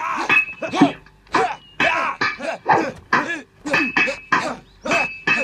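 Fighters' short shouted battle cries and grunts, about three a second, come in quick succession during a kung fu sword-and-staff fight. A thin high ringing tone comes and goes a few times among them.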